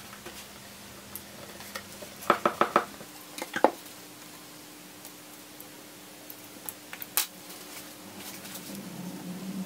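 Snap-off utility knife and vinyl sticker film being handled on a cutting mat while the film is trimmed: scattered sharp clicks and taps, a quick run of four about two seconds in and a single one around seven seconds. A faint steady hum lies underneath.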